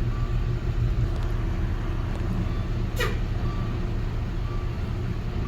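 Steady low rumble, with the faint tick of a car's hazard-light flasher about once a second. One brief sharp chirp that falls in pitch comes about three seconds in.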